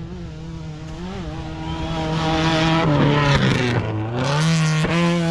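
Rally car engine coming closer at speed and getting louder; about three seconds in its pitch falls for a second as the revs drop, then jumps back up as it accelerates hard past.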